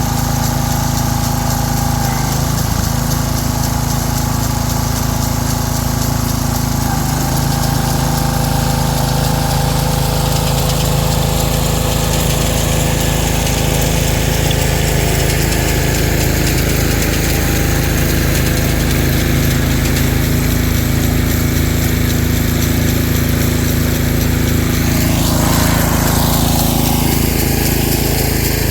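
Small engine of a Ryan GreensAire walk-behind core aerator running steadily under load while it aerates a lawn, with a brief falling-then-rising pitch sweep near the end.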